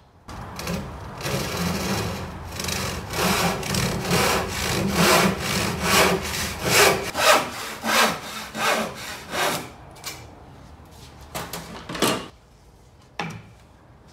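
Handsaw sawing through a wooden board in steady back-and-forth strokes, about two a second and growing louder, until the cut finishes about ten seconds in. A few short knocks follow near the end.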